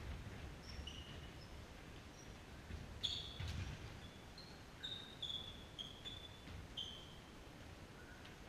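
Sports shoes squeaking on the indoor court floor as handball players run, turn and stop: a string of short, high chirps, with a few dull thumps of footfalls or the ball.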